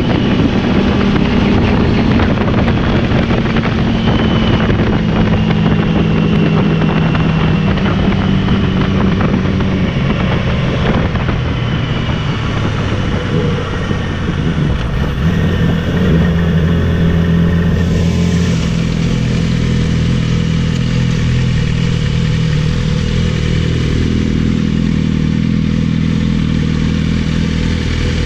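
Yamaha YZF R6's 600 cc inline-four engine running under way as the bike is ridden, its pitch shifting with the throttle and dropping once near the end, over rushing wind noise that eases about two-thirds of the way through.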